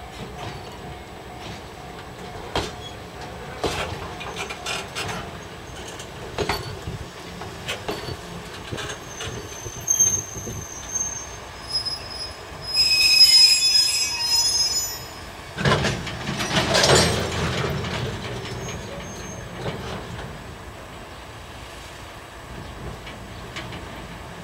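Container flat wagons rolling slowly behind a DE10 diesel shunting locomotive, with scattered clicks and clanks from the wheels and running gear. About thirteen seconds in the wheels squeal loudly for a couple of seconds. Then comes a louder clatter and rumble from the wagons.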